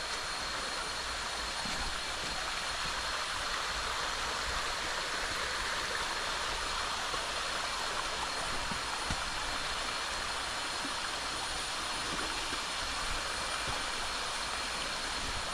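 Steady rushing of a jungle creek, an even unbroken wash of water noise, with two thin steady high tones above it.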